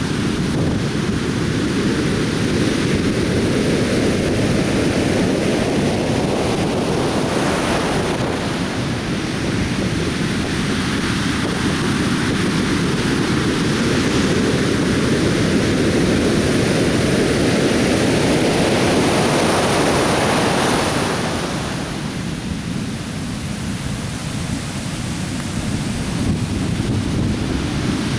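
Atlantic Ocean surf washing onto a beach in a continuous rush, swelling as waves break about seven seconds in and again around twenty seconds, then easing briefly.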